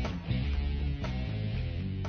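Background music with guitar strumming over a steady bass beat.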